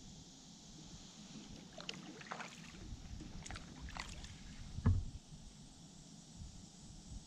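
Kayak paddling: a run of short splashes and drips as the paddle blades dip and lift, then a single loud knock about five seconds in, over a steady low water and wind background.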